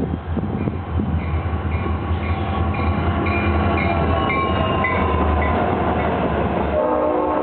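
EMD SD40-2 and GP38-2 diesel locomotives passing with a steady low engine rumble while the locomotive bell rings about twice a second. Near the end the lead SD40-2's Leslie S5T five-chime horn begins to sound as a steady chord.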